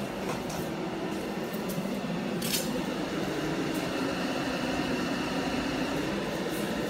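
CNC router's dust-collection system running steadily: a low hum with a faint high whine, and one sharp click about two and a half seconds in.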